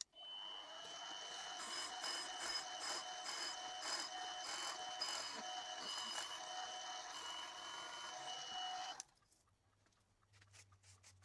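Milling machine spindle running, drilling an aluminium dust cap: a steady high whine with a second tone that pulses about twice a second. It stops abruptly about nine seconds in.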